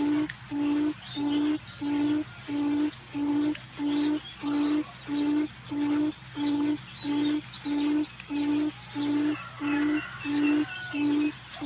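Forest quail (puyuh hutan) lure call: a short, low note on one pitch repeated evenly about twice a second. Faint high chirps sound behind it.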